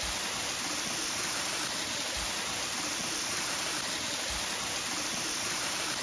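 Small waterfall pouring over rock into a pool: a steady, even rush of falling and splashing water.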